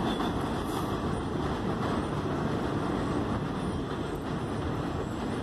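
Subway train running on elevated track, a steady noise that eases slightly.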